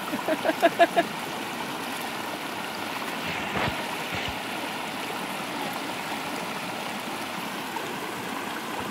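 Steady rushing of a shallow rocky river, water pouring over boulders in a small cascade. A person's voice comes in a few quick bursts, like laughing, within the first second, and there are two brief thumps about halfway through.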